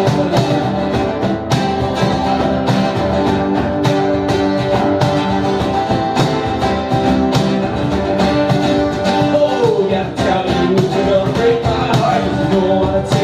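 Live band playing an instrumental break of a rock song, a guitar melody over bass and steady drums; about nine seconds in, a lead line slides down in pitch.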